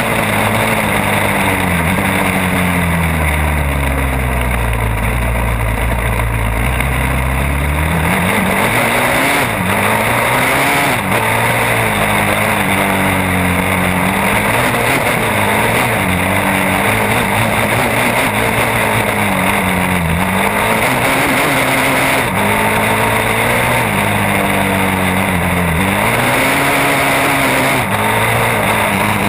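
Honda TRX-450R sport quad's engine under hard riding, its pitch falling away and climbing again over and over as the throttle opens and closes through the gears, with steady wind and trail noise.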